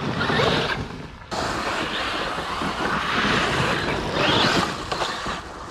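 Electric RC monster truck running hard off-road: the motor whines and the tyres churn over rough ground, with a rising whine as it speeds up about four seconds in.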